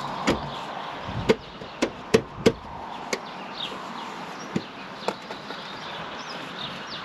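Sharp metallic clinks and knocks, about eight at irregular intervals and loudest in the first two and a half seconds, as a bolt and a new rear shock absorber are worked into line at the shock's mounting. Faint bird chirps sound in the background.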